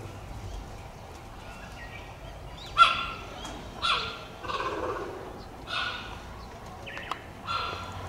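Cheetah calling: about five short, high, meow-like chirps, a second or so apart, starting about three seconds in. The first is the loudest.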